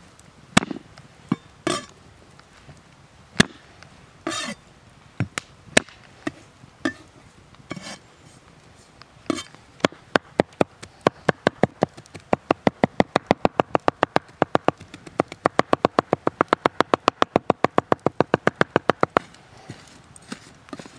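Large knife striking a wooden cutting board while garlic is cut. First come scattered single knocks as the cloves are crushed and cut. From about ten seconds in there is a fast, even run of chops, about five a second, mincing the garlic, which stops about two seconds before the end.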